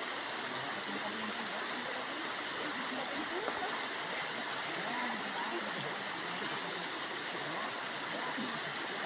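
Steady rush of flowing stream water, with faint voices under it.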